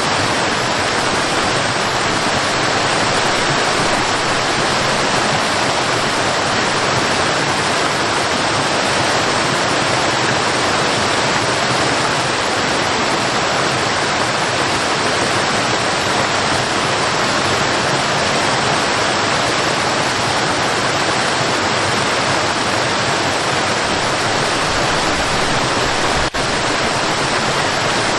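Waterfall: a steady, dense rush of falling water, with one brief dip about two seconds before the end.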